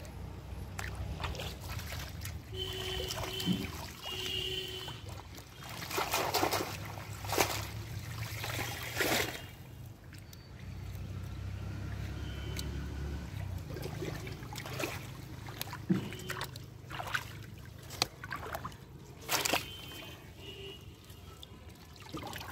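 Shallow river water splashing, sloshing and trickling as a bamboo-framed hand net is worked through it and lifted, with several sharp splashes in the middle and again near the end over a low steady rumble.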